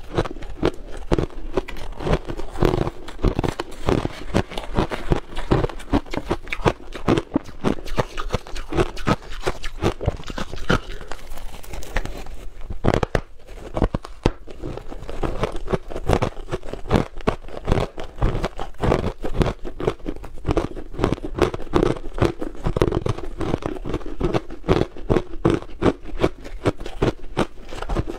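Close-miked crunching and crackling of crushed frozen ice being bitten and chewed: a dense, rapid run of brittle crunches.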